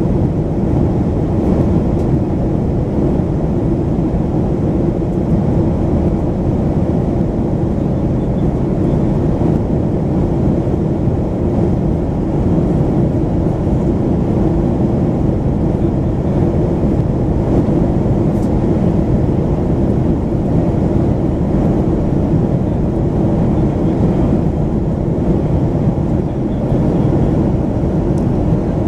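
Steady, low rumble of cabin noise inside a Boeing 737-500 in flight, from its CFM56-3 turbofan engines and the air rushing past the fuselage, heard from a window seat beside the wing.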